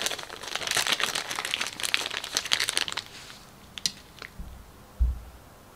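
Clear plastic parts bag crinkling as it is handled to get at a model tyre, for about three seconds. Then come a few light clicks and a dull thump near the end.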